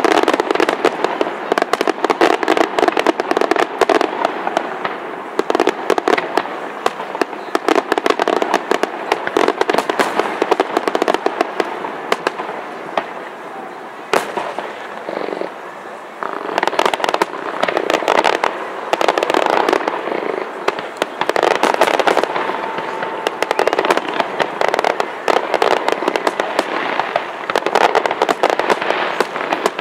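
Aerial fireworks bursting in rapid succession, a dense run of bangs and crackle that eases off briefly about halfway through and then picks up again.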